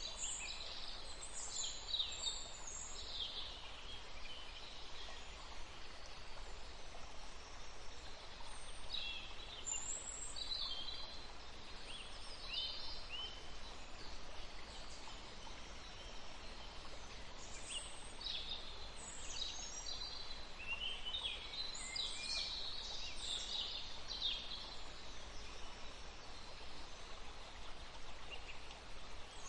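Forest songbirds chirping and singing in short high phrases, in clusters at the start, in the middle and again later, over a steady soft hiss of background noise.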